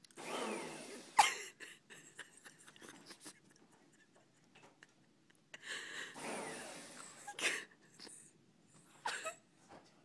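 A small handheld vacuum cleaner switched on in two short bursts about five seconds apart, its whine falling away after each. Each burst ends in a sharp knock, and another short knock comes near the end.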